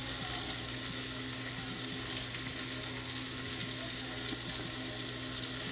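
Food sizzling steadily in pans on a stovetop, a constant hiss with a low steady hum underneath.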